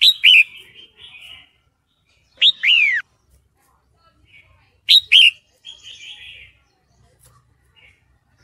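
Red-whiskered bulbul calling: short phrases of two or three quick notes that slide down in pitch, about every two and a half seconds, with softer chatter between. It is offered as a female in breeding condition calling to males.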